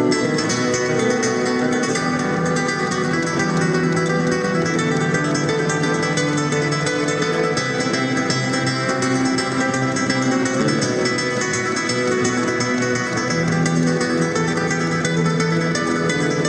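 Flamenco-style acoustic guitar played solo: a steady flow of fingerpicked notes over long-held bass notes.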